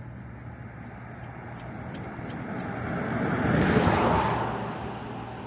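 A passing road vehicle: a broad whoosh of engine and tyre noise swells to a peak about four seconds in, then fades. A faint rapid ticking, about four a second, runs through the first half over a low steady hum.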